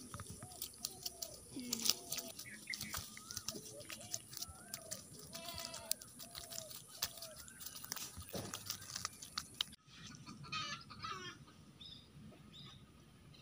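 Short animal calls repeated about twice a second, with scattered clicks. The sound cuts out suddenly about ten seconds in, and fainter chirping follows.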